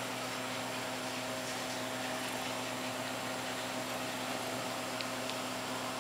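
Steady hum and hiss of background room noise, with two faint ticks about five seconds in.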